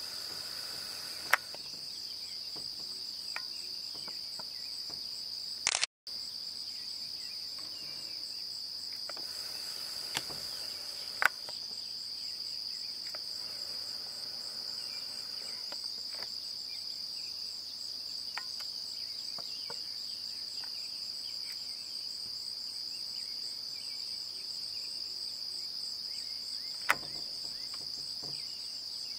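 Crickets trilling steadily in a continuous high chorus. A few sharp clicks stand out, and the sound cuts out completely for a moment about six seconds in.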